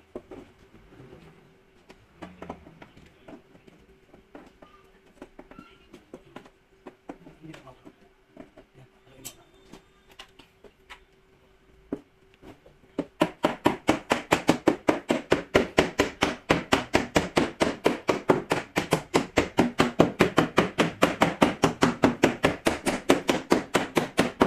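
A tool at work on fasteners in a car's rear wheel well: a few faint taps and clicks at first, then from about halfway a loud, rapid, even run of metallic clicks, about eight a second.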